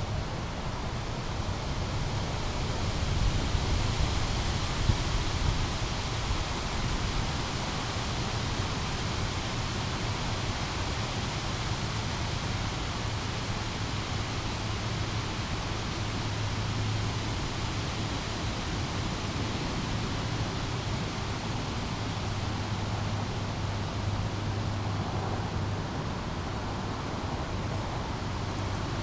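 Small brook babbling over rocks: a steady, even rush of flowing water, with a low steady hum underneath.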